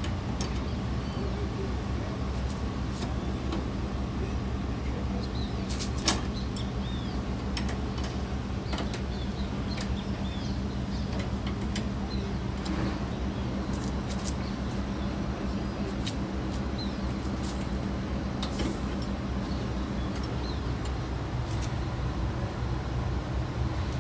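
Steady low hum of an idling engine, with scattered metallic clicks and one sharp snap about six seconds in as bolt cutters bite on a padlock shackle that has not yet given way.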